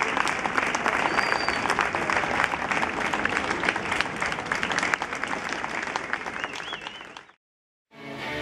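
Audience applauding, a dense patter of many hands clapping that fades out about seven seconds in.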